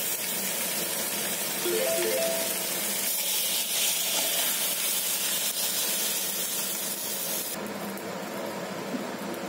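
Big head carp head pieces sizzling in hot oil in an iron wok, turning to a harsher, steamy hiss as cold water is poured onto the hot pan about three seconds in; the hiss cuts off suddenly near the end. A brief few-note chime sounds about two seconds in.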